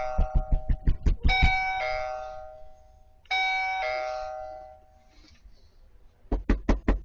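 Doorbell chime rung three times in quick succession, each a two-note ding-dong, high then low, with rapid, hard knocking on the door over the first chimes. After a quiet gap, a fresh run of fast knocking starts near the end.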